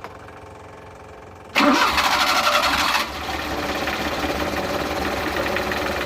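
Suzuki F6A three-cylinder engine started with the key and no throttle: about a second and a half in it cranks and catches with a loud burst, then after about another second and a half it settles to a steady idle.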